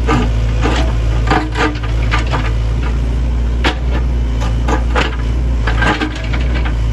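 Sany excavator's diesel engine running steadily under a dense low hum, with a dozen or so irregular knocks and clanks from the working machine spread through.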